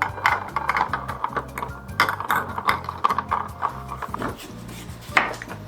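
Background music over repeated clinks and knocks of dishes and food containers being handled, with one louder knock near the end.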